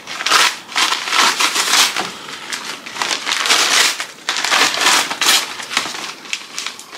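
Gift wrapping paper and tissue paper rustling and crumpling in repeated bursts as a present is pulled open by hand.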